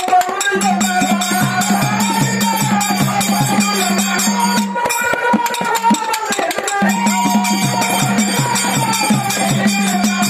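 Live dollina pada, a Kannada folk song: a man sings a wavering melodic line over jingling hand percussion and a held low drone. The drone drops out about halfway through and comes back a couple of seconds later.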